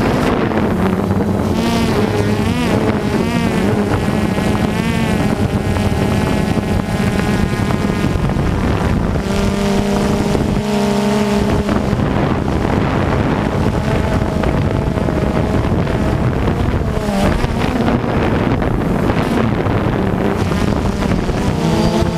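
Electric motors and propellers of a small radio-controlled aircraft, heard from its onboard camera: a steady whine whose pitch rises and falls as the throttle changes, with wind rushing over the microphone.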